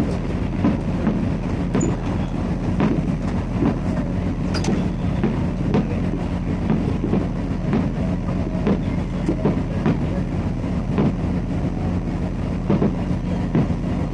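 Steady low rumble with a droning hum and scattered light knocks and clatter, the sound of a running vehicle.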